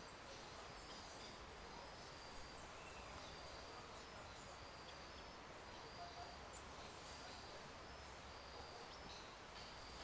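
Quiet outdoor ambience: a steady low hiss with faint, short high-pitched chirps repeating every second or so.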